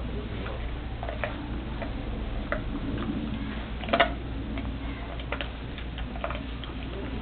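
A Rottweiler chewing a raw pig foot: irregular crunching clicks of teeth on bone and gristle, with one louder crack about four seconds in.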